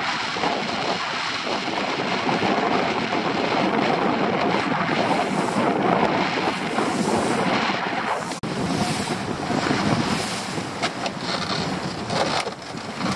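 Wind buffeting the microphone and sea water rushing and splashing along the hull of a small open boat under way, its outboard motor running underneath. The noise is steady, with a brief drop about eight seconds in.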